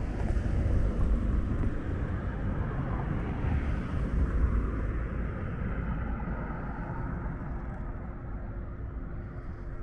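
Street traffic: a low rumble of passing motor vehicles, loudest in the first half and easing off, with a faint steady engine hum from about six seconds in.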